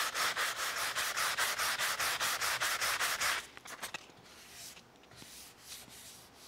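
Hand sanding with 220-grit sandpaper over a wooden bung set in a varnished wooden covering board: quick, even back-and-forth strokes, about seven a second, stopping about three and a half seconds in, followed by a few faint rubs of the hand across the wood.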